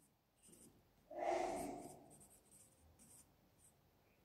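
Faint pencil scratching on paper as a word is written out by hand, with one brief louder sound about a second in.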